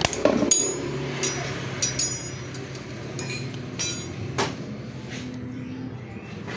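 Handling taps and light metallic clinks from a motorcycle fuel pump module being reassembled by hand: about nine short, ringing clicks in the first four and a half seconds, then fewer. Under them runs a steady low hum.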